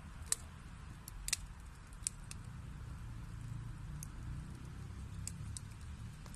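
Wood fire burning in a fireplace: a steady low rumble of the flames with a few sharp crackles and pops from the burning logs.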